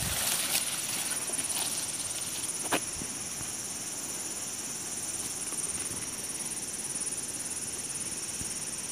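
Steady high-pitched insect chorus, like crickets or cicadas, with a few light clicks and rustles of handling, the sharpest just under three seconds in.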